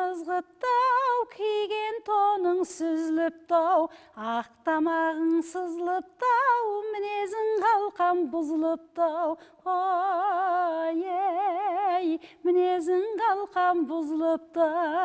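A woman singing a Kazakh folk song unaccompanied, in short phrases with steady vibrato and fast wavering ornaments on some held notes.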